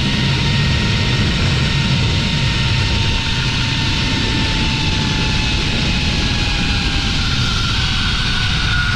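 Zip-line trolley pulleys rolling along the steel cable at speed, giving a steady whine that slowly drops in pitch, over heavy wind rush on the microphone.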